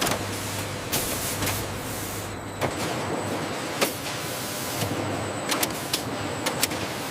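Factory machinery running with a steady whirring hiss, broken by sharp mechanical clicks and clacks at uneven intervals that come several a second near the end.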